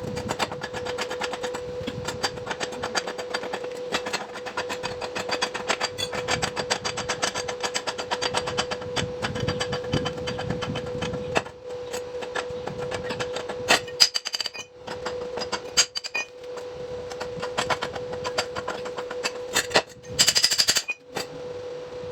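Metal being worked with a tool: a dense, fast run of clicks and scrapes over a steady hum, with a few louder knocks in the second half and a short, high-pitched screech near the end.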